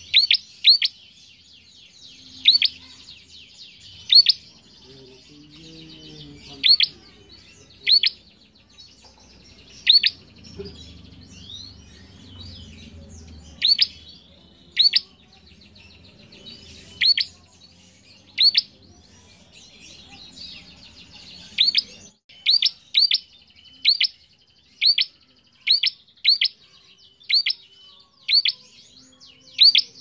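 A caged prenjak songbird calling persistently: loud, sharp notes, each a quick downward sweep, repeated every second or two and coming faster near the end, over softer continuous twittering.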